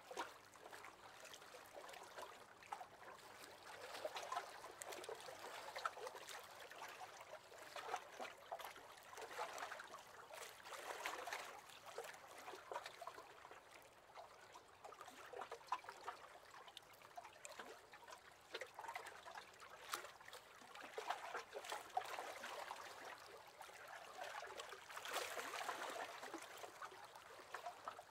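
Small waves lapping against the hull of a wooden rowing boat: faint water trickles and soft splashes that swell and fade every few seconds.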